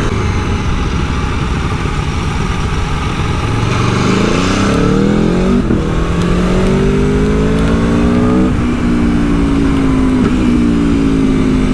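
Aprilia Tuono V4 1100's V4 engine pulling up through the gears, with wind rushing over the microphone. The revs climb from about four seconds in and drop sharply at two quick-shifter upshifts, nearly six and about eight and a half seconds in, then hold fairly steady.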